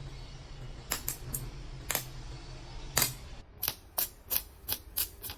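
A series of sharp clicks or taps over a steady low hum. They come about a second apart at first, then quicken to about three a second after about three and a half seconds.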